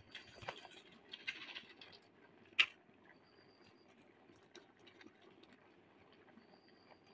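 Faint rustling and crinkling of a plastic spice packet being shaken out over a pot of raw beef, with one sharp tick about two and a half seconds in, then only faint scattered ticks.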